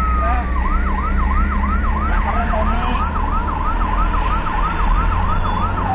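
Ambulance siren switching about half a second in from a slow falling wail to a fast yelp, about three rising-and-falling sweeps a second, over a steady low engine and road rumble.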